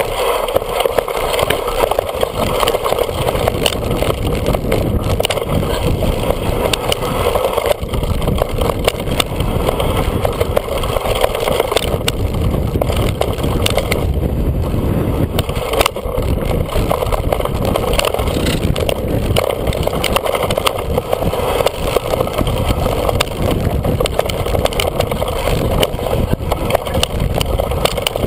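Mountain bike rolling fast down a rough, frosty, leaf-strewn dirt trail, heard from a camera mounted on the bike: continuous tyre noise with a dense clatter of small knocks and rattles as the bike and mount shake over the bumps.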